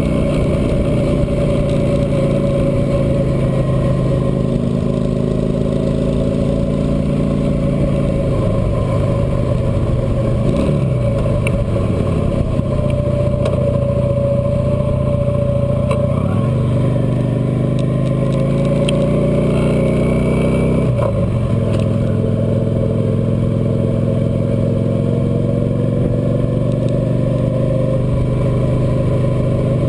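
Cruiser motorcycle engine running while riding along, its note dipping and climbing again about four times as the speed changes.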